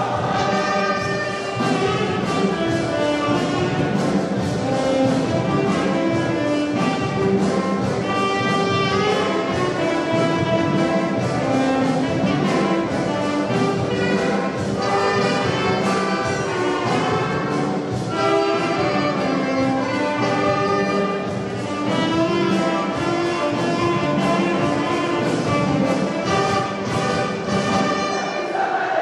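A school band plays an instrumental rumba passage on saxophones and trumpets over a drum kit. The horns carry the melody in long held notes above a steady drum beat.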